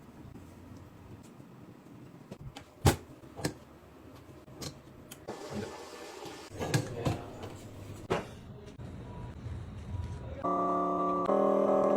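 Scattered sharp clicks and taps of small tools and phone parts being handled, the loudest about three seconds in, with a brief scraping hiss midway. Background music starts near the end.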